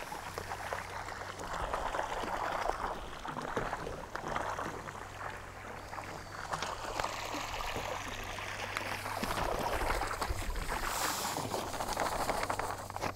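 Granular pool salt poured from a bag into the pool water: a continuous grainy, pattering hiss that swells and eases as it is sprinkled, over a steady low hum.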